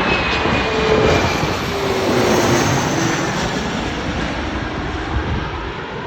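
Bombardier CRJ900 regional jet's twin rear-mounted turbofans passing low overhead on landing approach: loud, steady jet noise with a whine that falls in pitch as it goes by, easing slightly near the end.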